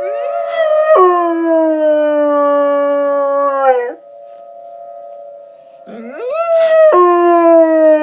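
A dog howling twice, each howl rising, then dropping and sliding lower, over the steady tone of a tornado siren in the background. The dog is howling along with the siren.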